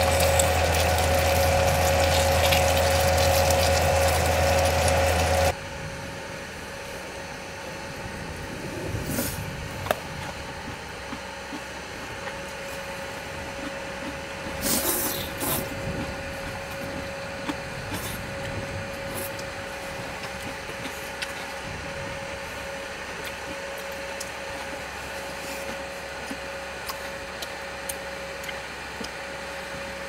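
Food sizzling and crackling on an aluminium griddle set on an induction cooker, over the cooker's steady electric hum. The sizzle is loud for about five seconds, then drops abruptly to a quieter crackle with a few light clicks.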